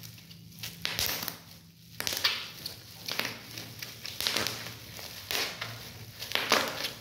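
Plastic bubble wrap squeezed and twisted by hand, crinkling, with many sharp, irregular pops and crackles as the bubbles burst.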